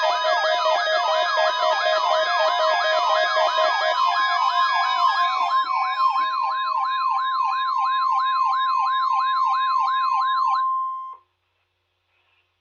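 NOAA weather radio warning alarm: a steady 1050 Hz tone with a fast siren-like warble sweeping up and down over it, about two and a half sweeps a second. This is the signal that sets off weather alert receivers, sent here as the weekly test. Other tones and music sound over it for the first half, and it all cuts off suddenly near the end.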